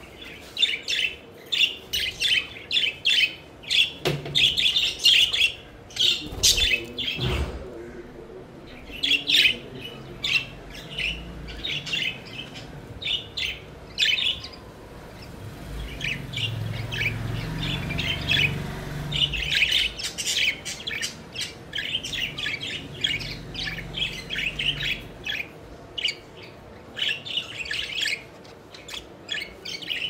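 A flock of budgerigars chirping and chattering, with dense runs of short, high chirps and a brief lull about halfway through.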